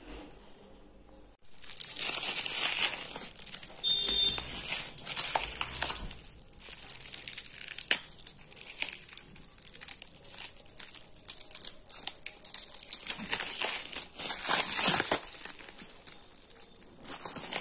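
Plastic wrapping and shredded foil packing filler crinkling as they are handled, in dense irregular bursts. It starts about a second and a half in, after a quiet start.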